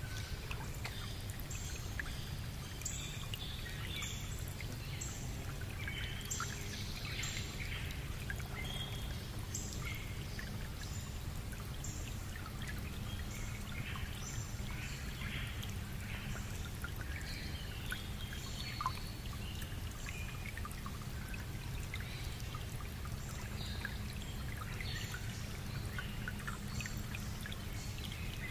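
Outdoor bush ambience: a steady low rumble with many short, high bird calls scattered throughout.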